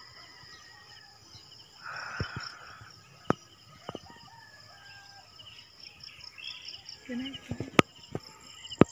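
Rural outdoor ambience: insects trilling steadily in a high pulsing tone, a rooster crowing once about two seconds in, and several sharp clicks.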